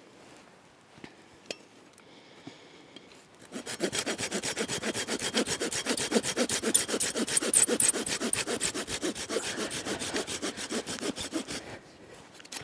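Hand saw cutting through a dead branch for firewood: fast, even back-and-forth strokes start about three and a half seconds in and stop near the end.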